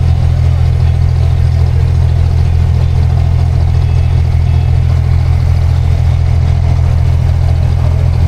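Boat engine running steadily under way, a loud constant low drone with no change in speed.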